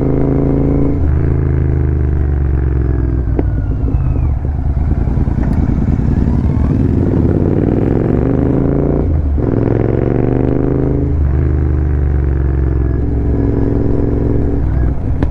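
Royal Enfield Continental GT 650 parallel-twin motorcycle with an aftermarket slip-on exhaust, ridden on the road. The engine note falls early on, then climbs steadily for several seconds. It breaks off briefly a few times where the rider changes gear or closes the throttle.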